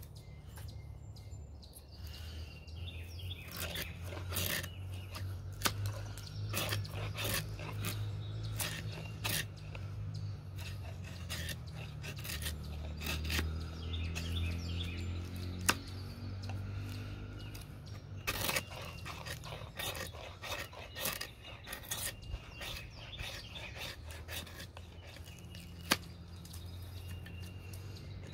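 Bushcraft knife carving shavings down a stick of dry wood: a long run of irregular scraping strokes. Birds chirp and a low steady hum runs underneath.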